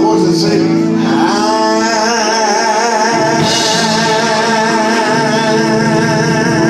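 Live gospel music: a voice holds long notes with a wide vibrato over guitar and sustained low bass notes.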